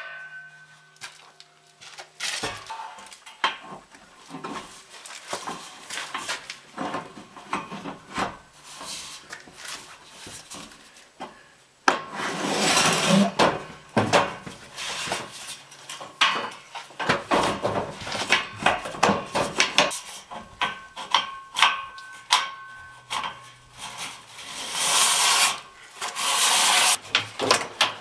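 Metal barn-door rail scraping and knocking as it is slid by hand through its overhead mounting brackets: irregular rubs and clanks, quieter at first and busier and louder from about halfway.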